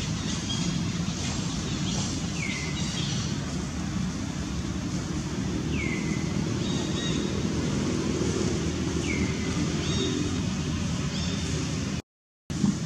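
Outdoor ambience with a steady low rumble, over which a bird repeats a short downward-sliding whistle about every three seconds. The sound cuts out for a moment near the end.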